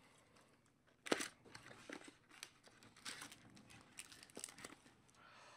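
Faint, scattered rustling and crinkling of trading-card pack wrappers and cards being handled, with a sharper crackle about a second in.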